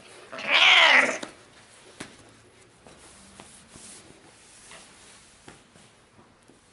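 A house cat's single angry yowl, about half a second in, rising and falling in pitch for under a second, as it attacks during rough play; faint scuffling on a wooden floor follows.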